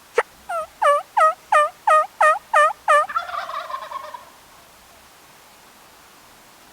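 Turkey calling: one sharp cluck, then a run of about eight yelps, then a fast rattling gobble that stops a little past halfway.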